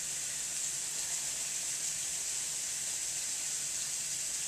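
Butter and oil sizzling steadily in a hot skillet.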